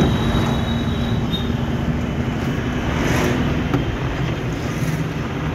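Car's engine and road noise heard from inside the cabin while driving, steady throughout, with a low hum that fades about three and a half seconds in.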